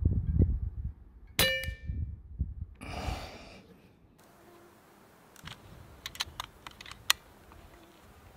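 .25 calibre air rifle firing one shot, a sharp crack with a brief metallic ring about a second in. A short rush of noise follows, then several small clicks of the rifle's action being worked.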